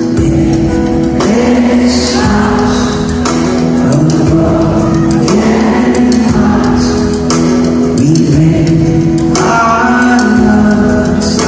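Live pop-rock song over a concert hall's PA: a man singing a slow melody over guitar and band.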